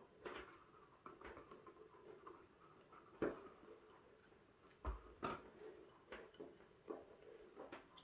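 Faint handling noises: fingers working a lamp cable and the plastic and metal parts of a lamp base, with irregular small clicks and rubbing and a few sharper knocks, the loudest about three seconds in and another pair around five seconds in.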